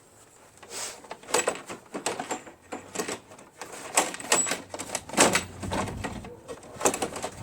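Irregular clicks and knocks of hands handling parts of a snowblower's fuel tank and fuel line, about a dozen sharp taps and rattles, loudest about four and five seconds in.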